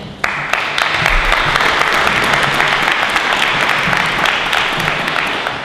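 Audience applauding for a speaker just introduced. The clapping starts suddenly just after the start and dies away near the end.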